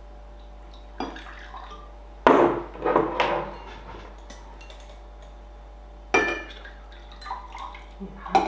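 A glass bottle and a glass carafe knocking and clinking on a wooden table and against a drinking glass, with sharp knocks about two, three and six seconds in. Near the end, water is poured from the carafe into the glass.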